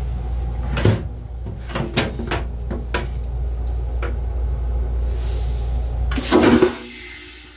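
Plastic toilet lid and seat being lifted on a stainless-steel toilet: a string of clicks and knocks, then a louder clatter about six seconds in as they are pushed back against the steel. A steady low rumble runs underneath and drops away near the end.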